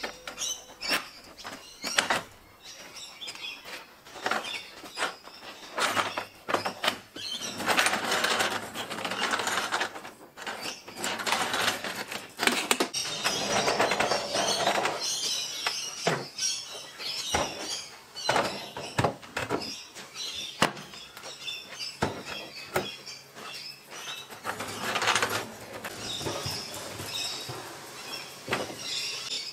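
Wooden shop carts rolling on swivel casters across a concrete floor, the wheels squeaking, with scattered knocks and clunks as drop-down caster pedals are stepped on and the carts are pushed into place.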